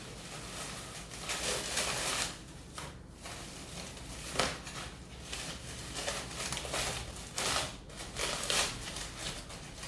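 Plastic food packaging rustling and crinkling in bouts as a wrapped package is handled and opened.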